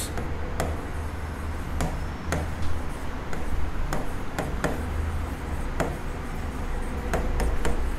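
Irregular light taps and clicks of a pen on a writing surface as someone writes, over a steady low hum.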